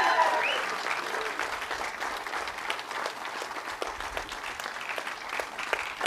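A crowd of wedding guests clapping steadily, with a last cheer or whoop fading out within about the first second.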